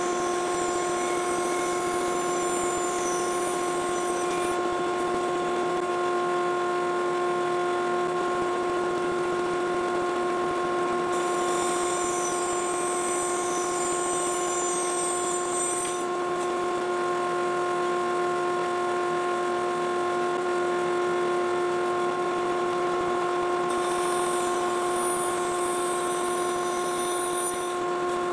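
Bandsaw and 4-inch Grizzly dust collector running with a steady hum, while the bandsaw blade cuts a wooden board held in a taper jig. An added high hiss of the cut comes in three stretches: at the start, mid-way, and near the end.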